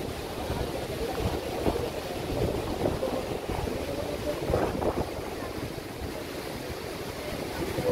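Steady rush of a waterfall's falling water, with wind buffeting the microphone in uneven low gusts.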